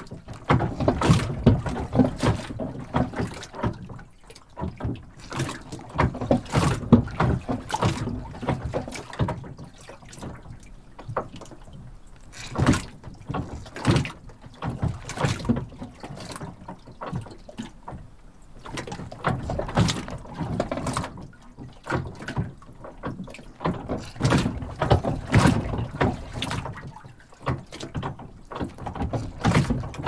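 A dock moving: irregular clusters of creaks and knocks, with water sloshing, that swell and fade every few seconds.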